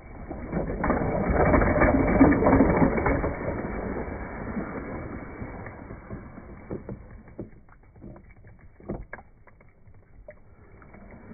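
A plastic toy playset's push-button mechanism whirring and clattering as the small toy cars in its tub rattle and shift. It is loud for the first few seconds, then fades to scattered clicks.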